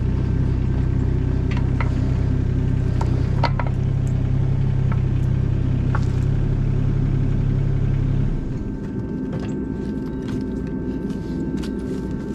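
A John Deere mini excavator's diesel engine running with a steady deep drone, with a few clicks and clanks from the moving arm and bucket. About eight seconds in, the deep drone falls away and the sound gets quieter.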